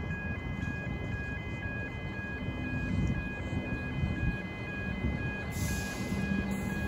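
Pedestrian crossing warning bells ringing: an electronic ding repeating about twice a second over the low rumble of an approaching Comeng electric train. A louder hiss from the train comes in about five and a half seconds in.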